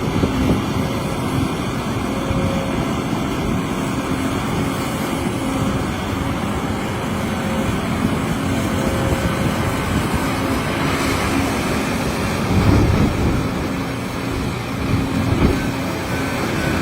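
Heavy excavator's diesel engine running steadily under work, with a faint hum over a dense rumble and two brief louder swells near the end.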